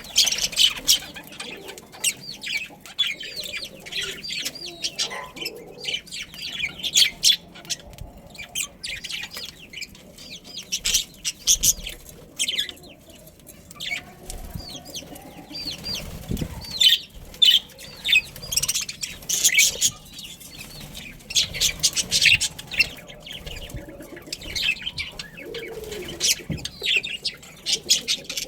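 A flock of budgerigars chirping and chattering without pause, a dense run of quick high chirps and warbles.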